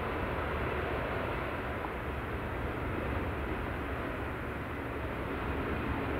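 Airbus A340-300's four CFM56 turbofans at takeoff thrust during the takeoff roll, heard from afar as a steady, even jet noise with no distinct whine.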